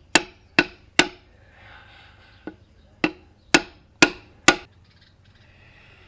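Hammer blows on a length of pipe used as a driver to seat a new rear axle seal in a Ford 9N tractor's axle housing. Three sharp strikes about two a second, one light tap, then four more strikes at the same pace, each with a short ring.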